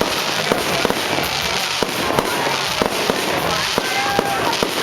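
Fireworks display: a dense continuous crackle with sharp bangs going off about three times a second, unevenly spaced.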